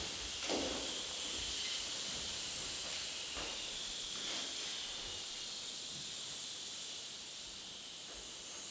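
A steady high hiss that slowly fades toward the end, with a few faint soft knocks.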